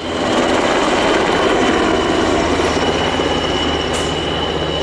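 NH90 twin-turbine military helicopter flying low and close, its rotor and turbine noise loud and steady with a thin high whine.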